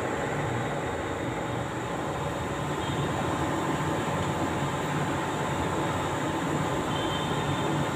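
Steady machine hum with a faint whine, even in level and unchanging.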